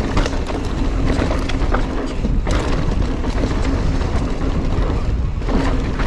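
Giant Trance mountain bike rolling fast down a dirt and gravel trail: tyre noise with a steady run of clicks and rattles from the bike over the bumps, and wind buffeting the handlebar camera's microphone.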